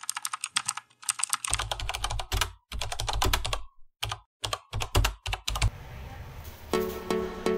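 Keyboard typing sound effect: rapid key clicks mixed with heavier thuds, coming in stops and starts. Background music comes in about six seconds in.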